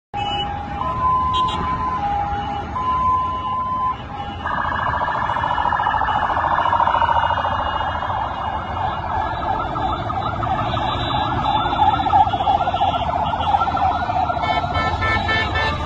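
Vehicle siren sounding two alternating tones, about a second each, then switching about four seconds in to a fast warbling wail that slowly drifts lower in pitch, over the low rumble of slow traffic.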